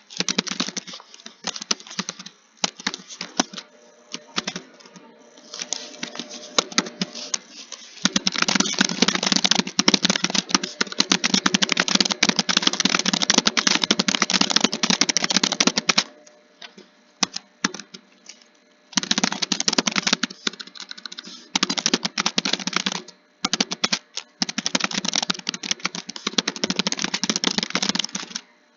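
Typing on a computer keyboard: fast, dense keystrokes in long runs, with a pause of a few seconds a little past halfway and a brief break later on.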